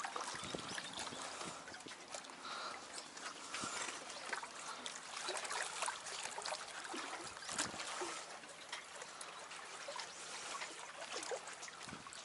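Small lake waves lapping and trickling among concrete tetrapod wave-breakers: a steady wash with many small irregular splashes and drips.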